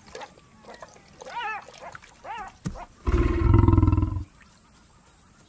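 Lioness growling over her kill at a scavenger: a loud, low, pulsing snarl lasting a little over a second, about halfway through. Before it come two short, high, rising-and-falling calls.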